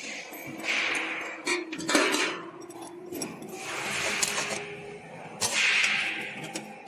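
Metal parts of the embroidery machine's thread stand clinking and rattling as a rod in the rack is fitted by hand with a tool, with a few sharper knocks and stretches of rubbing and handling noise.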